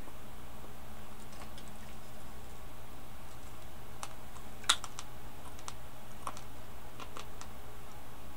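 Scattered clicks of computer keys at irregular intervals, with one louder click about halfway through, over a steady low hum.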